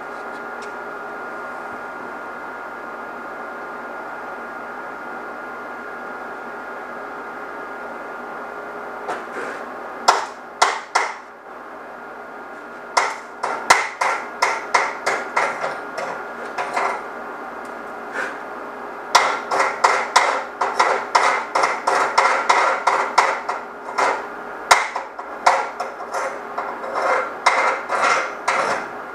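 A steady hum for the first nine seconds or so, then a chipping hammer striking a freshly laid 6013 stick-weld bead on steel to knock off the slag, in runs of sharp metallic taps, about four a second.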